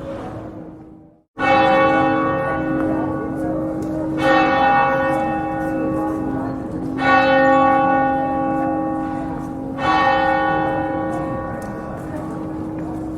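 A church bell tolling slowly: four strikes at an even pace of about one every three seconds, each ringing on until the next. Before the first strike the sound fades and cuts out briefly.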